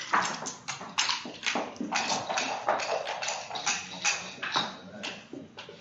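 Backgammon checkers knocking and clicking as they are picked up, slid and set down on the board and against each other: a quick, irregular run of sharp taps.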